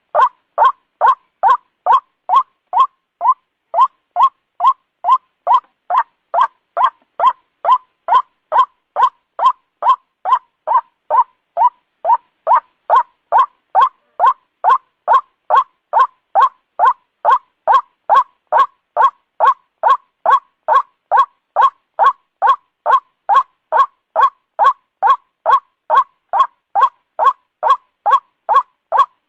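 White-breasted waterhen calling, a fast, unbroken series of loud, evenly spaced calls, about two and a half a second.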